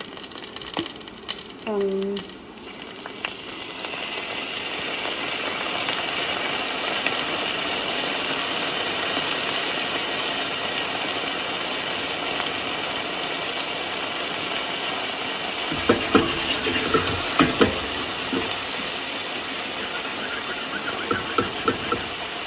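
A steady cooking hiss that builds up over the first few seconds and then holds, with a few clattering knocks in the second half and near the end.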